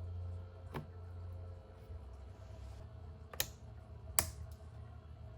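Three clicks from plugging in the repaired QFX 1560 speaker and trying its controls: a faint one about a second in, then two sharper ones under a second apart a little past the middle, over a low hum. The speaker itself makes no sound: it still does not turn on after a capacitor replacement.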